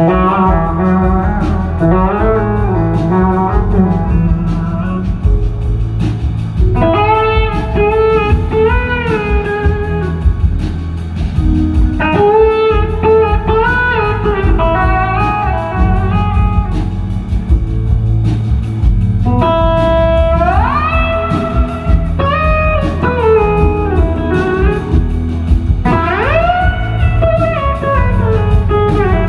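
Live blues-rock band music led by an electric slide guitar solo: long held notes that glide up and down in pitch, with big upward swoops near the end, over the rest of the band.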